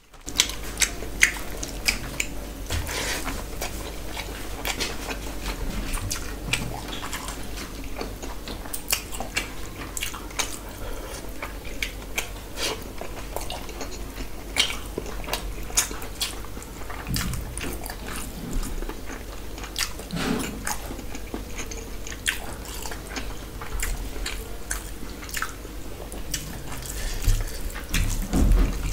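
Close-miked eating sounds: wet smacking and clicking of chewing and of fingers mixing rice with curry, many short sharp smacks one after another.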